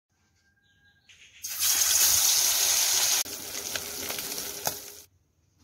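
A loud hissing rush for about two seconds, then quieter sizzling with scattered pops and crackles from sardines frying with curry leaves in hot oil in a pan. The sizzle cuts off abruptly near the end.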